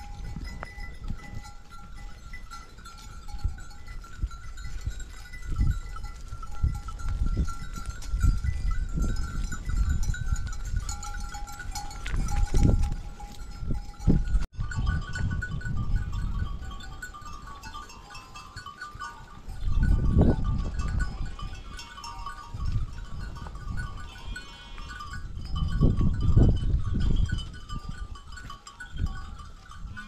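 Flock of sheep grazing, with a few bleats in the second half. Irregular swells of low rumble come and go throughout.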